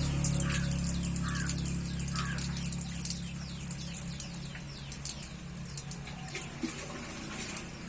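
Small birds chirping busily in the background, many quick high chirps that sweep downward. Three short mid-pitched calls come in the first couple of seconds, and a low steady hum fades out about three seconds in.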